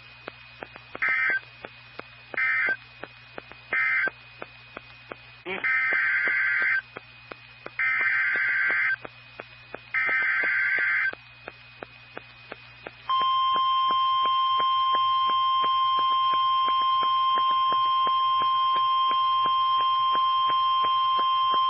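NOAA Weather Radio emergency alert signalling: three short digital data bursts, then three longer data bursts about a second and a half apart (the end-of-message code, then the SAME header of the next warning), followed by the steady 1050 Hz warning alarm tone held for about nine seconds. Faint regular clicks and a low hum run under it all from the receiver.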